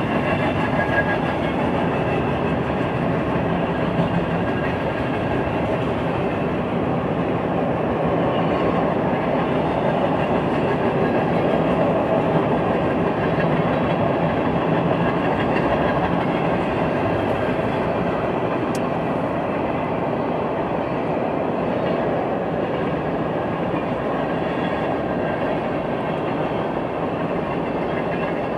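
Freight train cars, mostly tank cars, rolling past at a steady pace: a continuous rumble of steel wheels on the rails.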